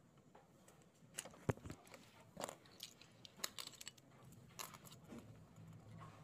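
Hands handling small plastic and metal parts: a run of light clicks, rattles and crackles, with one sharp click about one and a half seconds in.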